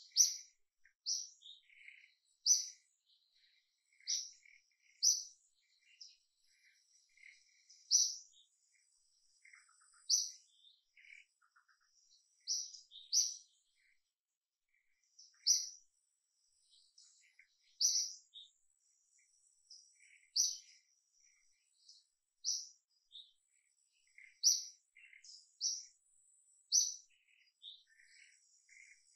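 Birds chirping: short, sharp high-pitched notes repeated every second or two, with fainter calls in between.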